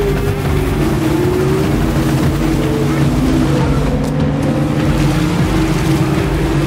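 Speedboat's outboard motor running at speed, a steady engine drone over the rush of water and spray along the hull.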